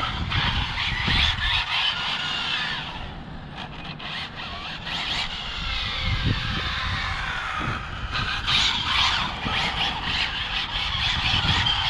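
Brushless electric motor of an Arrma Felony 6S RC car whining, its pitch sliding up and down as it is throttled through drifts, with tyres squealing on the pavement. It goes quieter about three seconds in and picks up again past the middle.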